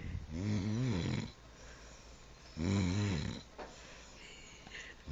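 A woman snoring: two long, low-pitched snores whose pitch wavers, about two and a half seconds apart, with a third starting right at the end.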